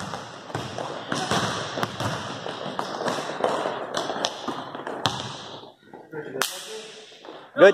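A basketball being dribbled and bounced on a gym floor, with players' footsteps: a string of sharp, irregular thuds in a reverberant gym, over a murmur of voices.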